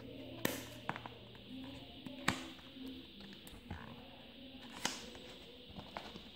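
Scissors cutting the seal on a cardboard product box, with a few sharp clicks of the blades, then the box being handled and its lid worked loose.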